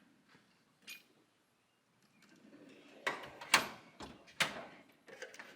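Drawer of a Husky metal tool chest being worked, with a few sharp clacks and knocks, the loudest about three and a half seconds in, and lighter clicks near the end.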